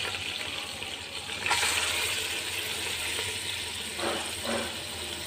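Yogurt-marinated chicken pieces frying in hot oil: a steady sizzle that swells about a second and a half in.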